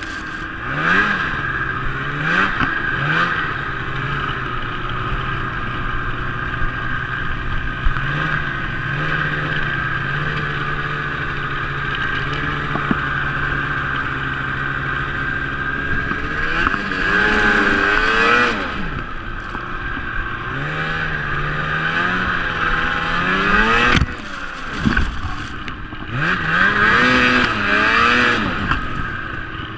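Snowmobile engine running under way, holding a steady pitch for several seconds, then revving up and easing off several times, with a brief drop in revs about two-thirds of the way through.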